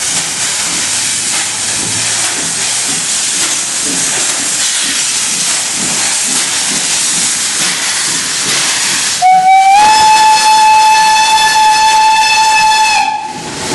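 Steam locomotive pulling away, with a steady hiss of steam from its open cylinder drain cocks over slow exhaust chuffs. About nine seconds in, its steam whistle sounds one long steady note for about four seconds, the loudest sound.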